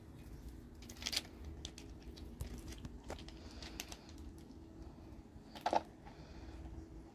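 Kittens scuffling and scrambling over loose pebbles and rock, giving scattered light clicks, scrapes and crunches of stones, with two louder crunches about a second in and near the end. A faint steady hum runs underneath.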